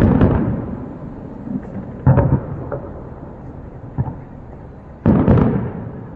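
Aerial fireworks shells bursting: three loud booms, at the start, about two seconds in and about five seconds in, each trailing off in a rumbling echo, with a smaller bang in between.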